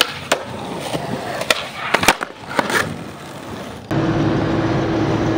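Skateboard wheels rolling on concrete, with several sharp clacks of the board. About four seconds in, the sound cuts abruptly to the steady hum and road noise of a car heard from inside the cabin.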